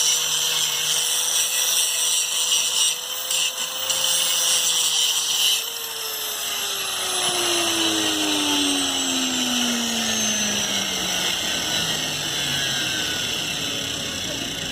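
An electric power tool running at steady speed, then switched off about five and a half seconds in, its motor winding down with a steadily falling whine.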